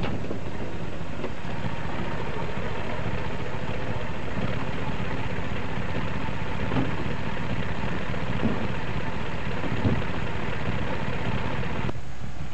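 Old car engine running steadily, a rapid low chugging with a few light knocks; the noise falls away just before the end.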